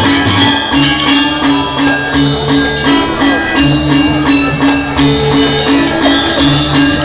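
Balinese gamelan music: bronze metallophones ringing a steady, repeating melodic figure over fast, shimmering ceng-ceng cymbal clashing.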